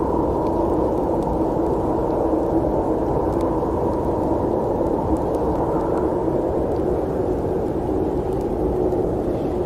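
Steady low rushing wind of a snowstorm ambience, an even noise that does not rise or fall, with a few faint ticks over it.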